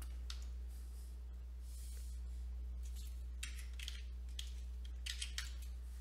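Quiet pause filled by a steady low electrical hum, with several soft, short clicks and scratchy sounds, the clearest about halfway through and near the end.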